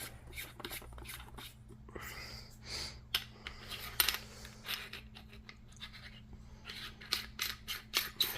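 Irregular light clicks, taps and scrapes of small lightsaber hilt parts being handled and fitted by hand, coming thicker near the end.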